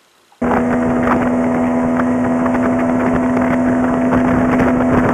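Boat's outboard motor running steadily under way, a constant engine hum over loud rushing noise. It cuts in abruptly about half a second in.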